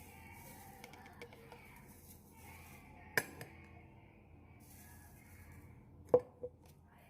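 Kitchenware clinking: two sharp knocks about three seconds apart, the second the loudest with a short ring and a lighter tap right after it.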